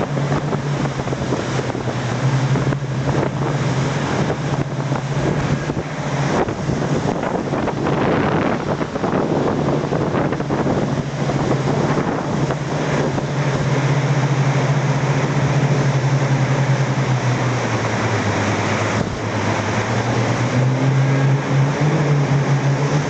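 Motorboat engine running under way, with wind on the microphone and water rushing past the hull. The engine note drops lower about three-quarters of the way through, then rises again near the end.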